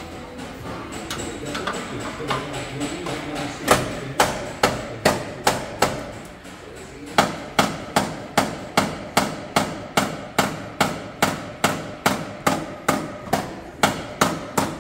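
Hammer blows on the crushed front end of a car, sharp and evenly paced with a short ring after each. About seven blows come some four seconds in, then after a brief pause about twenty more at roughly three a second.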